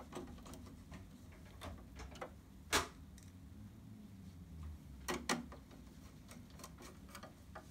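Screwdriver fitting and tightening screws into the plastic side cover of a Brother PR embroidery machine: scattered light clicks and ticks, the sharpest about three seconds in and two close together near five seconds, over a low steady hum.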